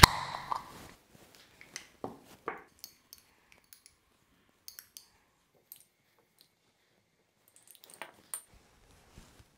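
A sharp click as a metal twist-off lid comes off a glass jar, then scattered light clicks and a few short, high clinks of a spoon against glass as blueberries in syrup are spooned out.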